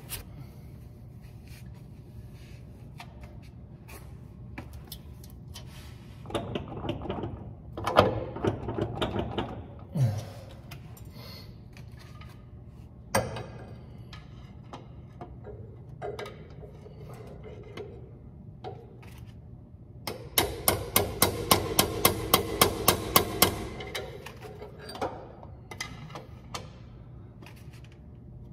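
Hammer tapping a pry bar to drive a new CV axle's inner end into a Toyota Land Cruiser 100 Series front differential, seating it until the snap ring engages. Scattered metal knocks and clunks come first, with a louder knock about eight seconds in. From about twenty seconds in comes a quick run of some fifteen light, evenly spaced taps, about four a second.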